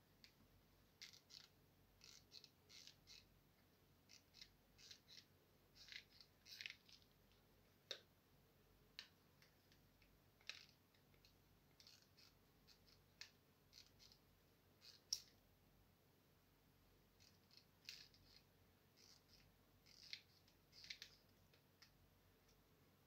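Faint, irregular small clicks and scratchy ticks, sometimes two or three close together, over near silence; one sharper click about fifteen seconds in.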